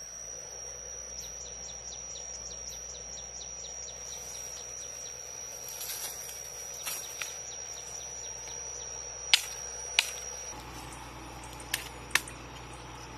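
Insects trilling in a steady high-pitched drone with a quick, regular pulse. A few sharp knocks of a machete striking bamboo cut in: two a little past the middle, two more near the end.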